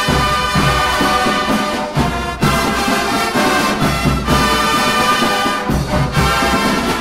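Drum and bugle corps bugle line playing full sustained brass chords, with two short breaks between phrases, one about two seconds in and one near the end.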